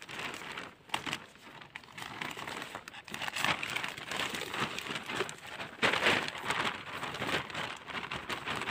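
Plastic bag crinkling and rustling as it is handled: a dense, continuous crackle, louder about three and a half and six seconds in.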